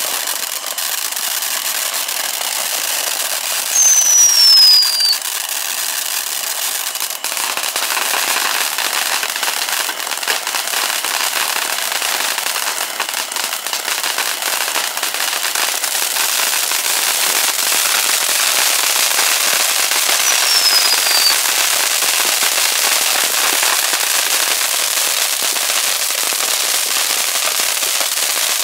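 Fox Fireworks Tres Amigos ground fountains spraying with a steady hiss and crackle. A falling whistle rises loudest about four seconds in, and a shorter one comes about twenty seconds in.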